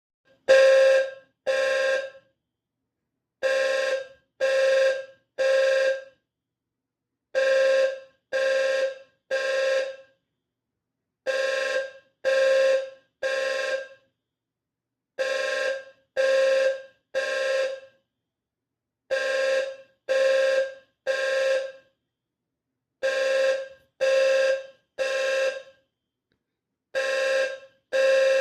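Eaton Wheelock Eluxa ELFHNW-N low-frequency fire alarm horn sounding a low-pitched tone in the temporal-three evacuation pattern: three short blasts about half a second each, then a pause, repeating about every four seconds.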